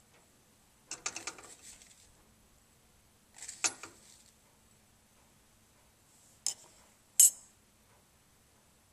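Small metal-on-plastic clinks and rattles as a metal spatula taps and scrapes salt into a plastic weigh boat on a triple-beam balance pan. There are two rattling spells, then two sharp single clicks near the end.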